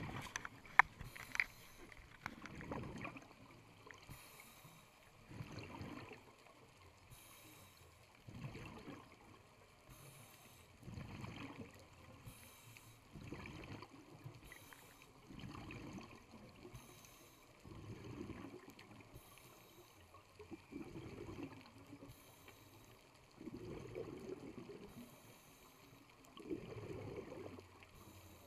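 Scuba diver breathing through a regulator underwater: a hiss on each inhale followed by a bubbling exhale, about ten breath cycles at an even pace. A sharp click about a second in.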